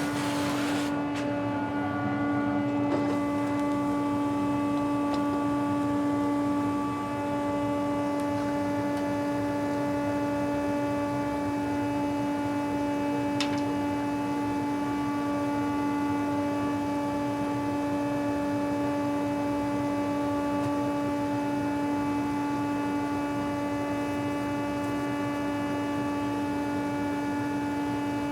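Electric wood planer running steadily, its motor giving a constant hum with a ringing overtone over the noise of the cutter.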